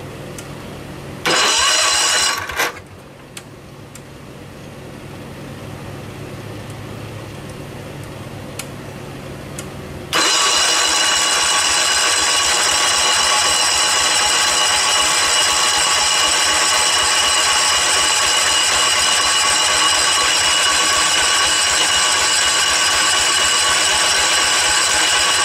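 Electric starter cranking the Kohler K301 single-cylinder engine of a John Deere 112 garden tractor without it firing: a short burst about a second in, then a long steady crank from about ten seconds in to the end. The engine won't catch because the ignition points are giving no spark.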